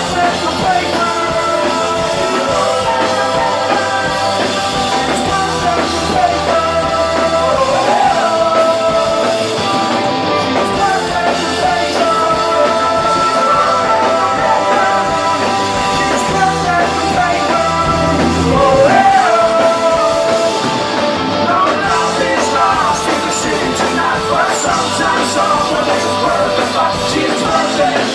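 Rock band playing a song live, the full band sounding together at a steady, loud level with a melodic line riding on top.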